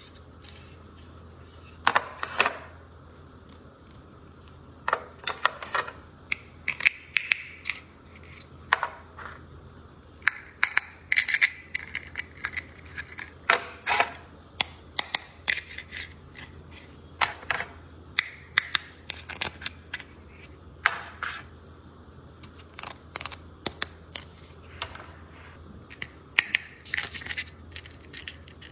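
Packaging and a small plastic squeeze toy being handled and unwrapped: irregular sharp clicks, crinkles and scrapes, a few a second at the busiest, with pauses between.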